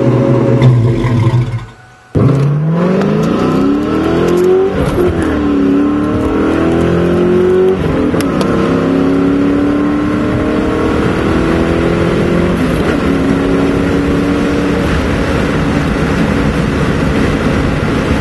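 2001 Mustang GT's 4.6-litre V8 through a Flowmaster 40 Series cat-back exhaust, idling with a steady burble, then after a short drop-out accelerating hard, heard from inside the cabin. The engine pitch climbs in each gear and drops at each upshift, about three times.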